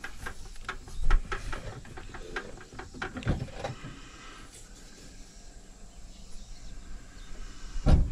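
Scattered clicks and knocks, with a louder thump about a second in, another a little after three seconds, and one near the end; quieter in the middle.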